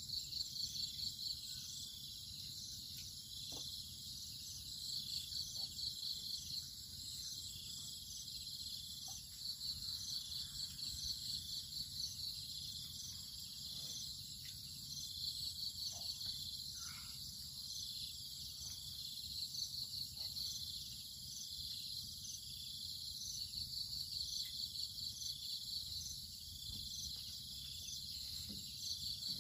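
Insects chirping: a high, pulsing chorus of rapid trills that swells and fades in groups every few seconds, with a few faint clicks and taps.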